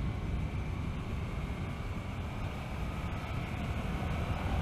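Steady wind rush on the microphone of an action camera riding on a moving motorcycle, with the Hyosung GT650R's V-twin engine running underneath.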